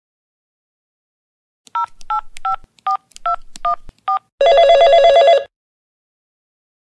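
Telephone keypad dialing: seven short two-tone touch-tone beeps in quick succession. Then a single warbling telephone ring about a second long.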